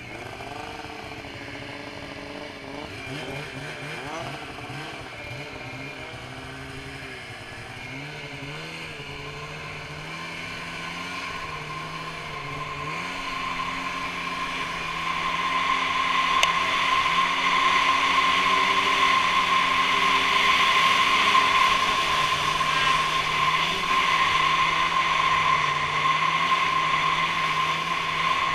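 A Polaris Switchback Assault 144 snowmobile's two-stroke engine running through a Bikeman Velocity aftermarket trail can exhaust as it rides along a trail. The engine pitch wavers up and down at first, then about halfway through it speeds up, grows louder and holds a steady higher note.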